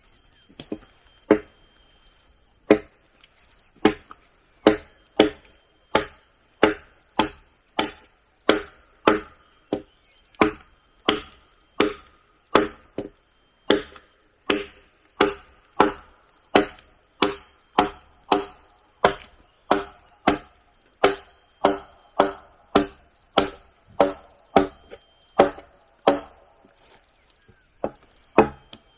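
A blade chopping into wood in steady strokes, about one and a half a second, starting about a second in. Each stroke is a sharp knock with a short ringing tone.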